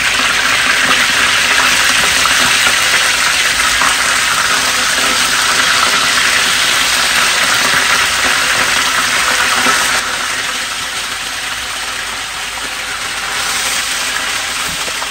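Chicken leg quarters sizzling steadily as they shallow-fry in hot oil in an electric skillet, being browned to a golden colour. The sizzle drops a little about ten seconds in.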